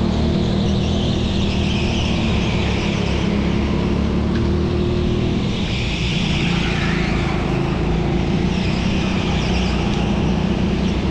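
Racing kart running flat out on track, its engine note rising and falling repeatedly as it accelerates and slows through the corners.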